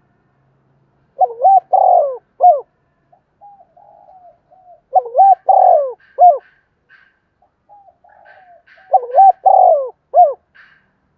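Spotted dove cooing: three loud phrases of several coo notes each, about four seconds apart, with softer cooing between them.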